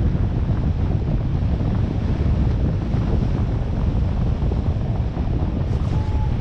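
Steady wind buffeting the microphone of a camera carried in free flight, a low rushing noise. One short beep sounds near the end.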